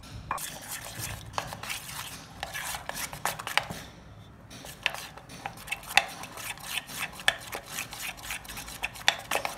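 A metal spoon briskly stirring chocolate cake batter in a stainless steel bowl, clinking and scraping against the bowl's sides in quick, uneven strokes. There is a brief lull about four seconds in, then the clinks come sharper and faster.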